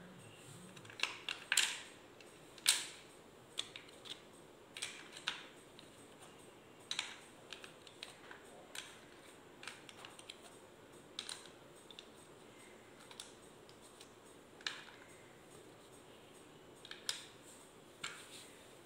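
Light, irregular clicks and taps of thin subtraction-board strips knocking together as they are gathered and laid into their wooden box, with a few louder knocks among them.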